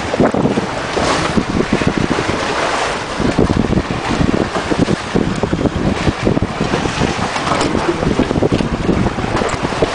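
Wind buffeting the microphone in gusts over the rush of water past the hulls of a Crowther Buccaneer 24 trimaran under sail.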